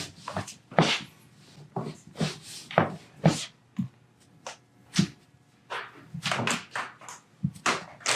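A string of irregular soft thumps and rustles from hands, clothing and a padded chiropractic table as the patient is handled and repositioned.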